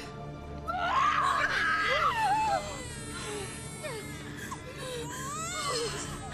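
Newborn baby crying in short wavering wails that rise and fall, loudest in the first half, over a low sustained music score.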